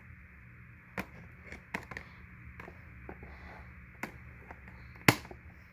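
Scissors snipping packaging ties on a toy box: a handful of separate sharp clicks and snips, the loudest about five seconds in, over a faint steady hum.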